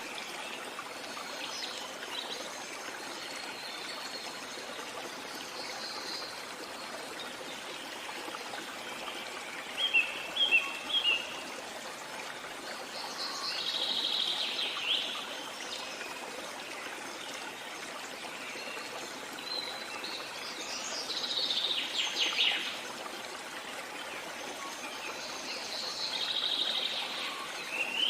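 Birds singing and chirping over the steady rush of a flowing stream. A quick run of loud chirps comes about ten seconds in, followed by longer bursts of song a little later, again past the middle, and near the end.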